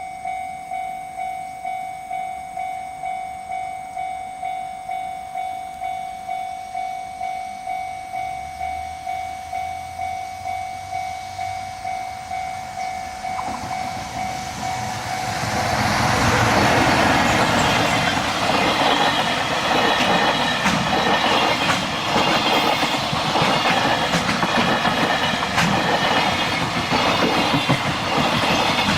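Japanese level-crossing warning bell clanging about twice a second. About fifteen seconds in, a JR Freight freight train arrives and passes, its wagons rumbling and clattering over the rail joints and drowning out the bell.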